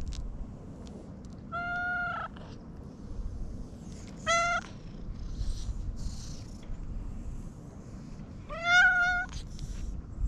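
Brown tabby-and-white cat meowing three times while being stroked: one meow a second or two in, a shorter one around four seconds in, and a third near the end that is the loudest.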